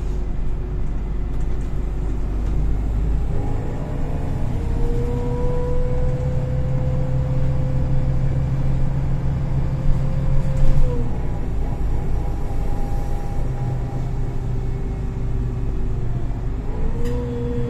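Golden Dragon XML6125CC city bus with a Voith automatic gearbox under way, heard from inside the cabin: a steady low drone with a whine on top. The whine climbs early on, drops sharply about eleven seconds in, and climbs again near the end. A couple of short knocks come just before the drop.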